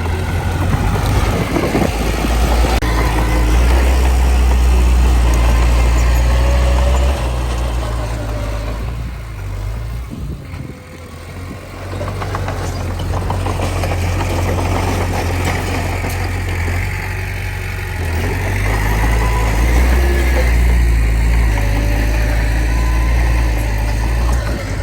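Heavy diesel engine of earthmoving machinery running hard, with a deep steady hum. It is loudest in the first several seconds, eases off near the middle, then comes back up and holds.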